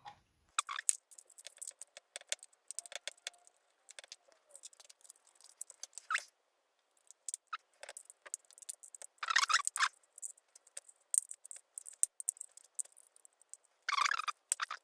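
Irregular small clicks, snaps and scrapes as a thin pry tool works along the edge of a first-generation iPad's front glass, popping the screen's retaining clips loose. There are louder bursts of clicking about nine and a half seconds and fourteen seconds in.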